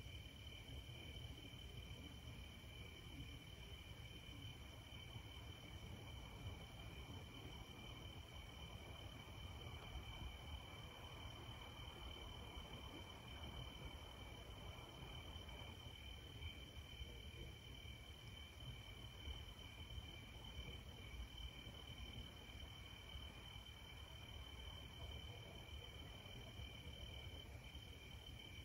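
Faint, steady chorus of night insects such as crickets, two unbroken high tones held throughout, over a low rumble.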